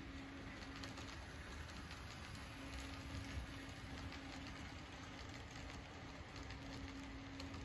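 HO-scale model freight train rolling past, its wheels clicking and rattling over the track in many small ticks, with a steady hum that comes and goes.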